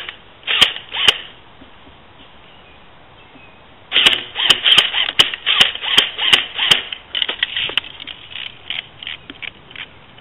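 Airsoft guns firing: a few single shots near the start, then a fast string of shots, about two or three a second, from about four seconds in for roughly three seconds, trailing off into softer scattered clicks.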